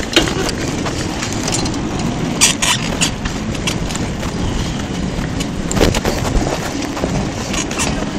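Steady rush of wind and rolling noise from a bike ridden along a paved park path, with scattered rattles and knocks from the bike and camera over bumps, a cluster of them about two and a half seconds in and more near the end.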